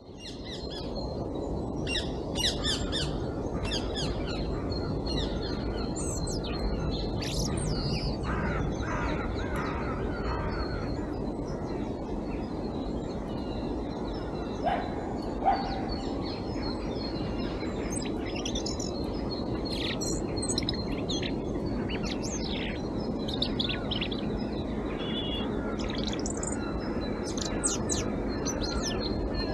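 European robin singing: short, thin, high warbling phrases, one after another with brief pauses, over a steady low background rumble. About halfway through come two short, lower notes.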